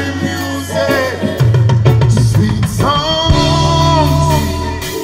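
Live reggae band playing: long held sung notes over a bass line and drums.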